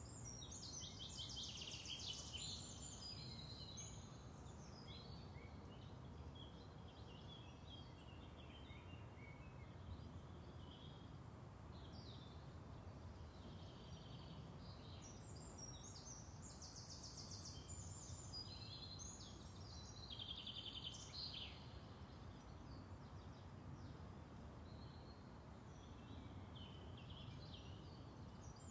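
Faint birdsong, in short chirps and trills, over a low steady outdoor background noise. There is a spell of song at the start and a longer one from about twelve to twenty-one seconds in.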